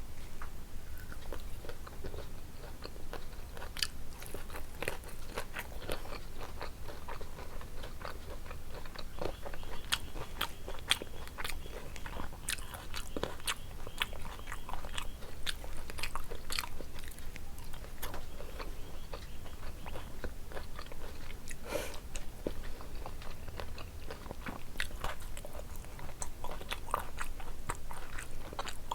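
A person chewing and biting food, with crunches and many short wet clicks and smacks scattered throughout.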